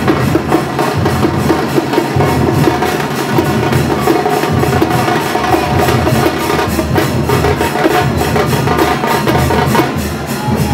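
Loud drum-led music from a temple festival procession, with fast, evenly spaced drumbeats.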